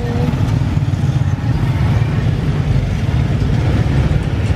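Several motorcycles and small scooters running at low revs and pulling away as they ride across the railway tracks, a steady, dense engine rumble.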